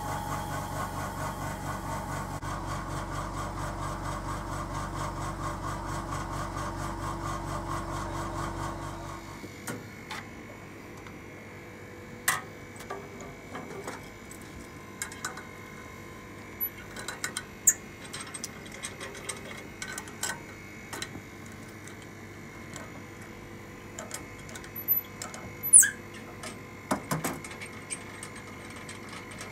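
A machine motor runs with a steady, even pulsing and stops about nine seconds in. Then comes a string of sharp metallic clicks and clanks as a wrench loosens the bolt on the steel door of a bubble-remover autoclave.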